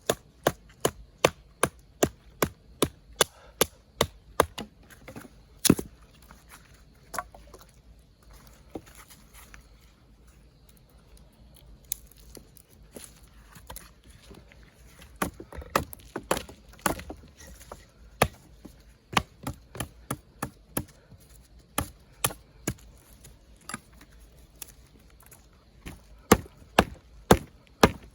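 Repeated sharp chopping strokes on wood, coming in quick runs of about two to three a second, sparser for a few seconds in the middle.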